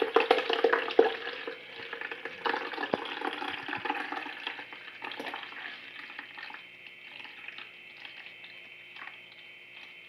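Water pouring from a plastic bottle into a drip coffee maker's reservoir, a run of irregular splashes and gurgles. It is loudest in the first few seconds and grows faint from about six seconds in.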